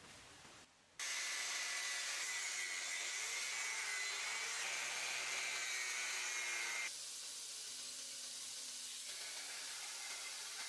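A power tool running steadily with a hissing, high whine, cutting in abruptly about a second in and dropping to a lower level about seven seconds in.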